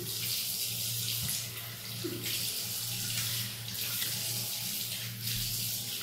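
Tap water running into a sink while a face is splashed and washed with it by hand, the rush of water swelling and easing in surges. A steady low hum runs underneath.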